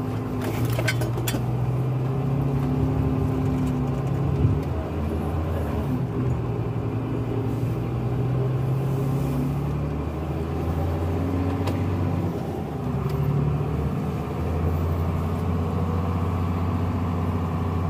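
Truck engine running under load, heard from inside the cab as the truck drives with a tyre roller on the back; the engine note drops and rises a few times. A few light clicks sound about a second in.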